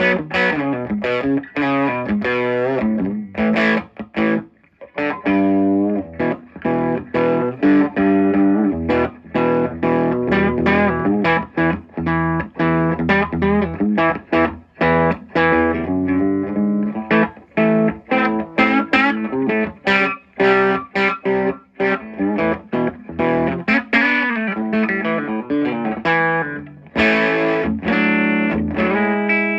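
Les Paul electric guitar played through a Fender '57 Custom Deluxe (5E3 tweed) amp fitted with a WGS G12Q speaker, all controls wide open. Chords and riffs come with gritty tweed breakup and short stops between phrases.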